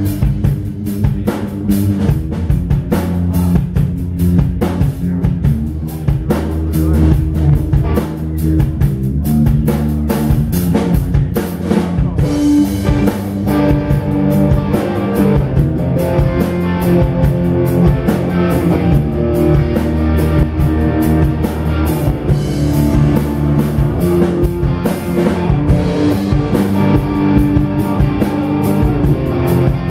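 Rock band playing live with drum kit, electric guitar and bass, a steady driving beat.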